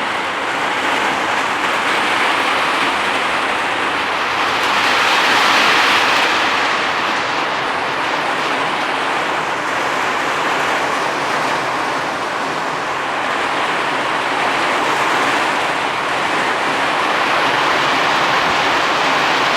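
Strong storm wind blowing as a steady rush of noise, swelling in gusts about five seconds in and again near fifteen seconds.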